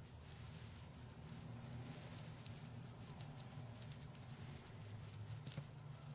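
Faint crackling and clicking from a Goliath birdeater tarantula crunching a cricket held in its fangs, with the sharpest click about five and a half seconds in, over a low steady hum.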